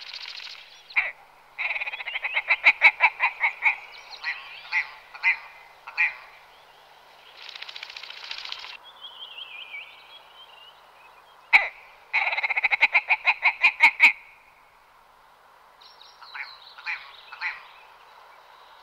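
Willow ptarmigan calling: two runs of rapid, evenly spaced notes, each about two seconds long. The first run trails off into a few slower, separate notes, and a few scattered quieter notes come near the end.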